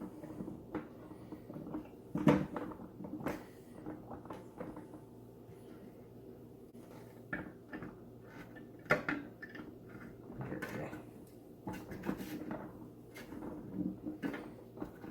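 Turntable dust cover being fitted onto its hinges: scattered knocks and clicks of hard plastic being handled. The loudest knocks come about two seconds in and again about nine seconds in.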